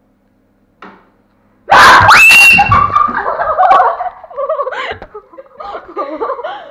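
A faint click, then a sudden, very loud scream of fright from a boy jumped on in a jump scare, held high for about a second, breaking into shaky laughter and laughing talk.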